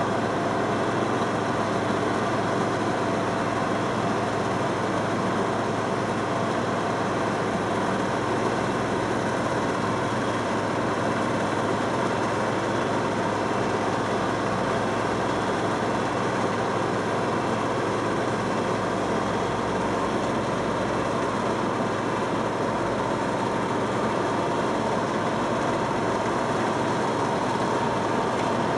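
Diesel engines of an asphalt paver finisher and a tipper truck running steadily while the truck tips asphalt into the paver.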